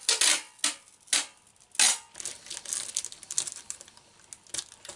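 Adhesive tape ripping off its roll in four short rasps over the first two seconds, followed by softer crinkling as the tape and plastic membrane are pressed onto a jar.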